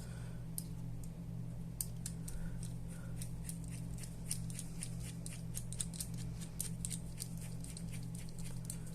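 A small screw being turned into a VFC MP5 SEF trigger box with a screwdriver: many quick, light metallic clicks and ticks, thickest through the middle of the stretch. A steady low hum runs underneath.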